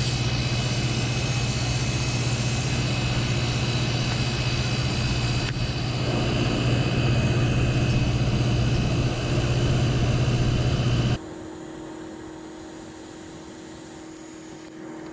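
Walk-in cooler's condensing unit running: the Tecumseh compressor hums steadily under the whoosh of the condenser fan. About eleven seconds in the sound cuts off suddenly, leaving a much quieter steady hum.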